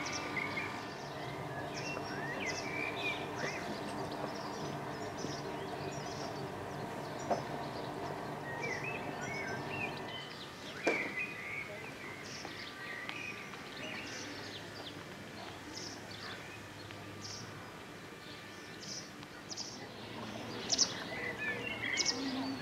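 Songbirds chirping and singing over a low steady engine hum from a small motorboat moving slowly along the canal. A sharp click sounds about eleven seconds in.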